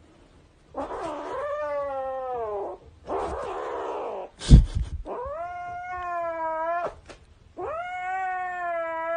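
Grey kitten giving three long, drawn-out yowls with a rasping, breathy stretch after the first, the possessive growl-yowl of a kitten guarding a plush toy that a hand is reaching for. A single loud thump about four and a half seconds in.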